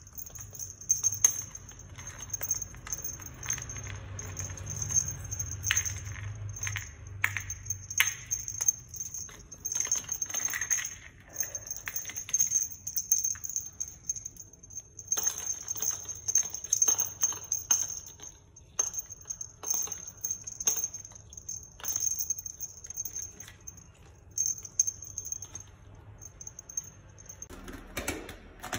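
Small bells on kittens' play toys jingling on and off as the kittens bat at them, mixed with scattered clicks and knocks of plastic toys against a plastic basket.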